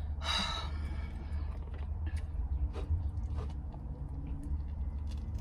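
A person chewing and eating, with a short noisy burst just after the start and scattered soft mouth clicks. Under it runs a steady low rumble inside a car.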